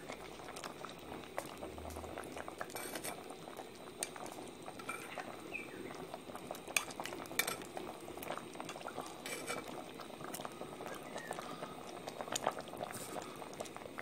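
Chicken and mushroom stew simmering in a cast iron potjie pot with a steady bubbling, while a metal spoon clinks now and then against the pot as sauce is scooped up.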